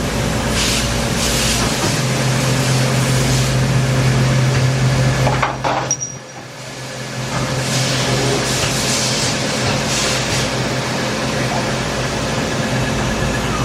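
Steady machinery hum with low tones, with stretches of hissing; the sound drops away sharply for a moment about six seconds in, then builds back up.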